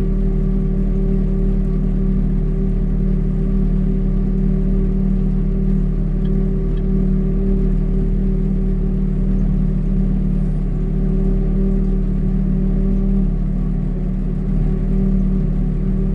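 Vehicle engine running at a constant speed: a steady drone with several fixed tones that hold unchanged throughout.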